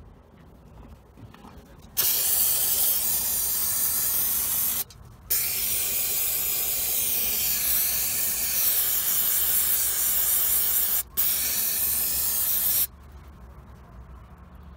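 Aerosol spray cleaner hissing onto the exposed steering rack end in three spurts: one of about three seconds, a longer one of about six seconds, then a short one that stops about two seconds before the end. It is cleaning mud and grime off the rack shaft before it is greased.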